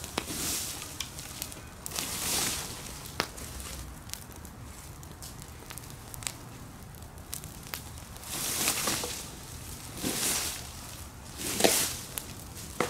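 A plastic leaf rake swishing and scraping dry leaves and brush into a crackling burn-pile fire, a handful of strokes with three close together near the end.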